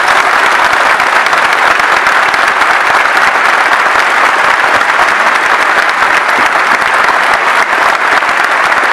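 Large crowd applauding loudly and steadily.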